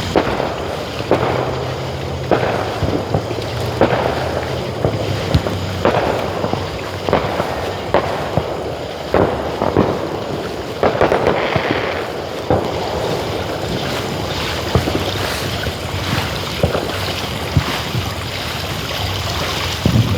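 Fireworks going off irregularly, sharp pops and bangs, some with a short echoing tail, over a steady background hiss and low hum.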